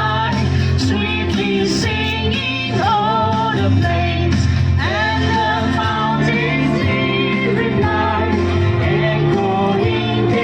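Music: a Christmas song with singing over a backing band.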